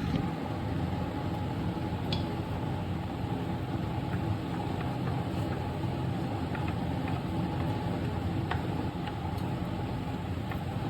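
A steady hum like a running motor, with a few faint light clicks scattered through it.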